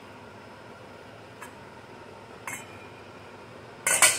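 Stainless steel lid set down on a stainless saucepan, a quick cluster of loud metallic clinks near the end, after two faint clicks.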